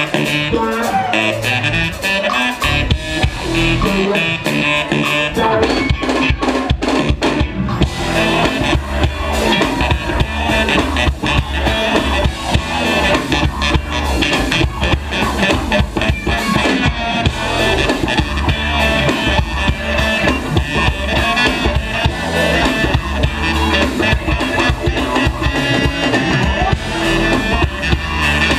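Live funk band playing loudly: drum kit, bass and electric guitar in a steady groove.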